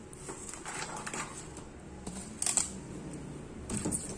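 Thin white plastic sheets from inside a monitor being lifted and slid by hand: a few short rustling scrapes and clicks, the sharpest a little past halfway and another near the end.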